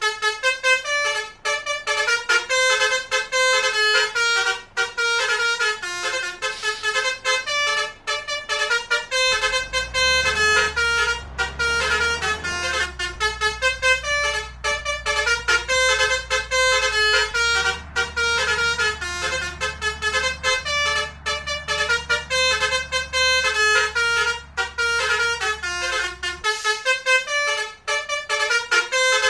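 Indonesian bus 'telolet' musical horn playing melodies, its several horn tones stepping rapidly from note to note with brief breaks. A low rumble runs underneath through the middle stretch.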